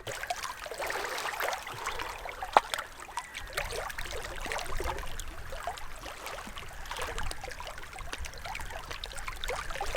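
Small trickle of water running over stones, a dense, irregular run of little bubbling notes, with one sharp click about two and a half seconds in.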